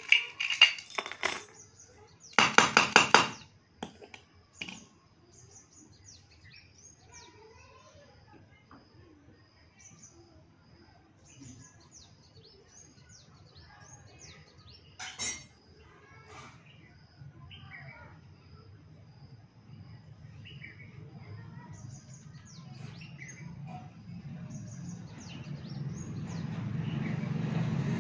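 Steel padlock and keys clattering onto a concrete floor about two and a half seconds in, a short metallic jangle with ringing. After it, birds chirp faintly, and near the end a low vehicle rumble grows louder.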